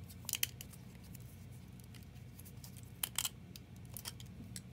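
Quiet, scattered clicks and small snaps of PETG tree-support branches being squeezed and wrenched off a 3D print with round-tip pliers, the loudest pair about three seconds in.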